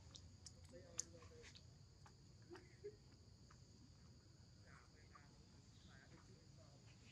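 Near silence: faint steady insect chirring, with two brief clicks, one about a second in and a softer one near three seconds.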